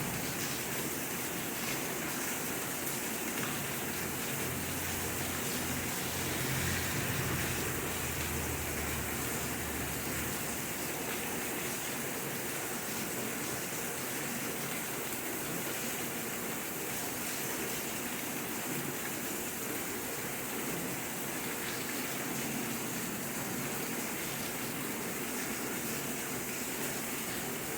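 Steady rain falling, an even hiss with no breaks. A low rumble sits under it for a few seconds early in the first half.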